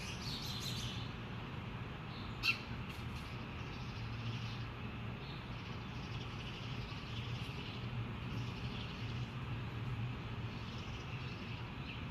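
Birds chirping over a steady low hum, with one sharp click about two and a half seconds in.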